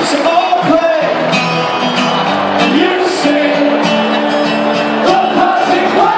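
Live rock band playing on a festival stage, with a singer over the band, heard over a large open-air crowd.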